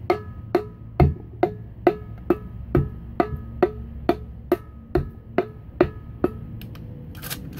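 Wooden hammer handle tapping a piston down through a Harbor Freight piston ring compressor into an engine's cylinder bore: light, even taps about two a second, each with a short metallic ring from the compressor band. The tapping stops a little over six seconds in.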